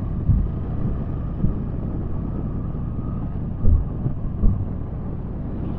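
Wind rumbling and buffeting on a helmet-mounted external microphone on a motorcycle ridden at speed, over the motorcycle's running noise, with two stronger low gusts past the middle. The camera's wind noise reduction does not work with the external mic attached.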